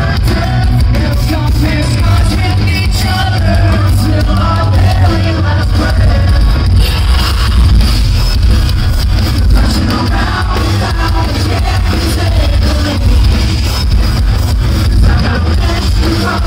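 Metalcore band playing live: loud, bass-heavy guitars and drums with sung vocals, recorded on a phone in the crowd of a concert hall.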